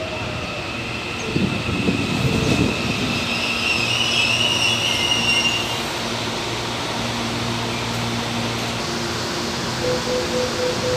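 A series 7000 electric multiple unit pulling into the platform and braking to a stop. Its wheels knock over rail joints early on, then a high wheel-and-brake squeal runs for a few seconds before the train settles into a steady hum. A beeping signal starts near the end.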